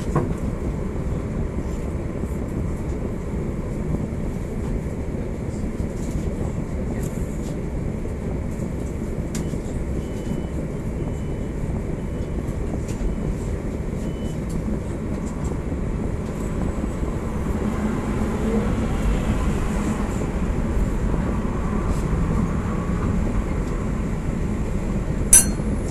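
Coupled PCC tramcars heard from the driver's cab: a steady low rumble and hum while standing, then from about two-thirds of the way through the traction motors pull away, with a faint rising whine and growing running noise as the tram gathers speed. A single sharp click comes near the end.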